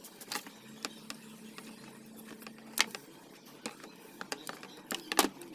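Scattered metal clicks and knocks as a rusty pipe wrench is picked up out of a plastic tray and worked in the hands. The two loudest knocks come just past the middle and near the end.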